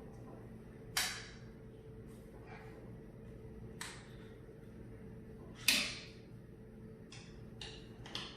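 Sharp clinks and knocks of hand tools and winch parts being handled during disassembly of a Warn 8274 winch: single strikes about a second in and near four seconds, the loudest a little past halfway, then a quick run of lighter clicks near the end.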